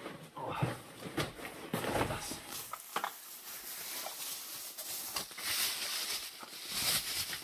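Wrapped parts being unpacked from a parcel by hand: rustling and crinkling of packing wrap, with scattered small knocks and clicks of parts being handled. The crinkling is busiest a little after halfway.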